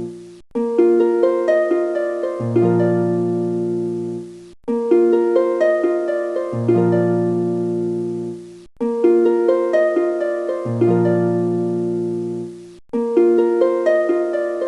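Background music: a gentle plucked-string melody over low held notes. A short phrase loops about every four seconds, with a brief gap between repeats.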